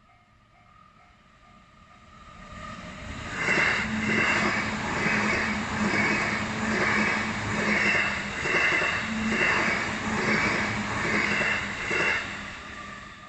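A Chuo Line train passing over a level crossing: it builds up from about two seconds in, its wheels clatter over the rail joints about once a second as each car goes by, and it fades near the end. The crossing's warning bell rings faintly at the start and end, under the train.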